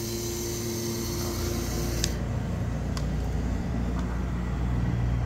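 Small AC electric water pump feeding a steam boiler, running with a steady hum and hiss, then switched off about two seconds in with a click. A low steady rumble carries on after it stops, with a couple of faint ticks.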